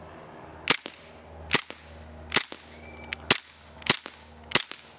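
Echo 1 Timberwolf gas blowback airsoft pistol firing six shots in steady succession, each a sharp crack of gas and cycling slide, spaced less than a second apart.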